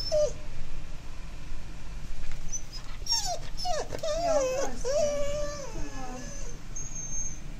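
A husky-type dog whining: a brief whine at the start, then from about three seconds in a run of rising and falling high whimpers lasting some three seconds. It is the anxious whining of a dog frightened by a thunderstorm.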